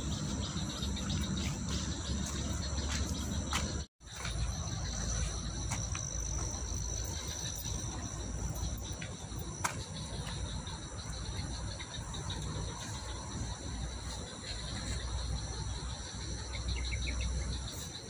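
A steady chorus of insects, with continuous high-pitched trilling, over a low rumble. The sound cuts out completely for a moment about four seconds in.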